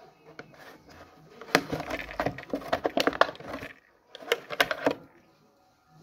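Clear hard-plastic blister tray of a perfume gift set clicking and crackling as a small spray bottle is worked out of it, in two bouts of handling with a brief pause between.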